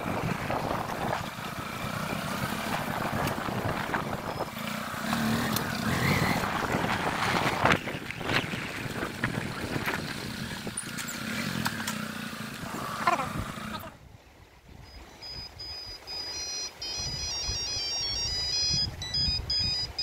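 Motorbike riding along a rough off-road track: engine and wind noise with a few knocks. About fourteen seconds in it cuts out and a high-pitched electronic chiming tune plays.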